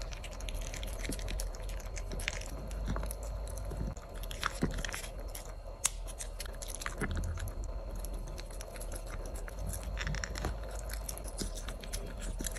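A mame shiba (small Shiba Inu) puppy chewing and biting food close to the microphone: irregular crisp clicks and crunches of its jaws and teeth.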